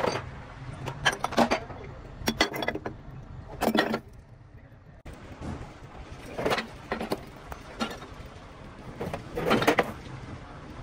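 Irregular metallic clanks and knocks, several in quick clusters, as of metal pieces being struck or handled.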